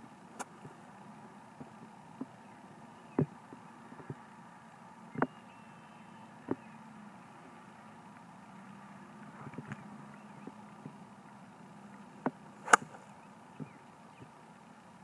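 Golf iron striking a ball off the turf: a crisp click just after the start and another, the loudest, near the end, with a few fainter knocks between, over a low steady background hum.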